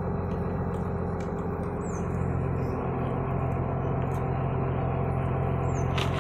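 Diesel engine of a Demag truck-mounted mobile crane running steadily, its note shifting slightly about two seconds in. A sharp click sounds near the end.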